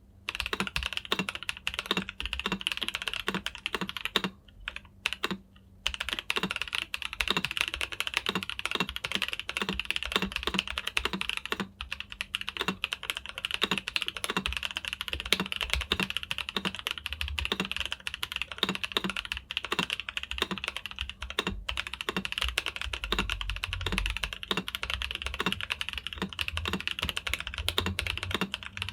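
Typing on a Rama Works Kara mechanical keyboard with lubed Gazzew Boba U4T tactile switches and PBT keycaps: fast, continuous keystrokes, pausing briefly twice about four to six seconds in.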